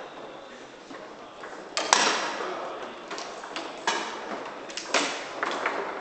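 Foosball being played on an Ullrich table: irregular sharp clacks and knocks of the ball against the plastic men and of the rods shifting, with hall echo. The loudest is a quick double clack about two seconds in, with further knocks near four and five seconds.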